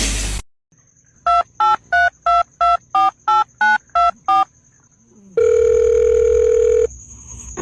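Touch-tone telephone keypad dialing ten digits, about three quick two-note beeps a second, followed by one long ringing tone of about a second and a half as the call connects.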